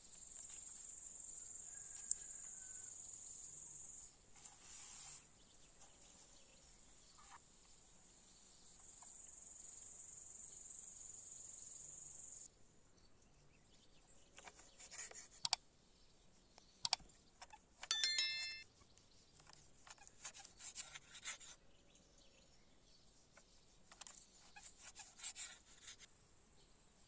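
Insects stridulating, a steady high-pitched buzz that runs in stretches of a few seconds, then stops. Later come a few sharp clicks and a brief ringing ding, the loudest sound.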